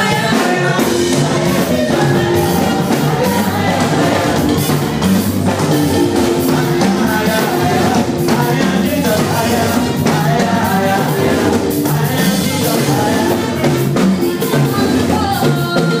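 Children's church choir singing a praise song into microphones over accompanying music with drums and a steady beat.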